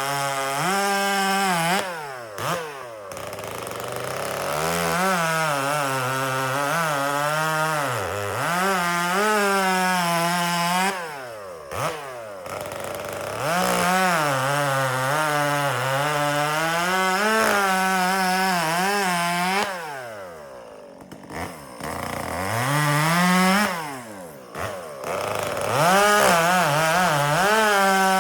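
Two-stroke chainsaw bucking firewood: the engine runs at high revs, its pitch sagging as the chain bites into the log and climbing again. Several times the revs drop off briefly between cuts before the throttle is opened again.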